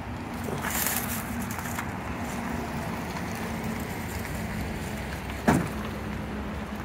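A steady low mechanical hum, as of an engine or motor running, with one short sharp sound falling quickly in pitch about five and a half seconds in.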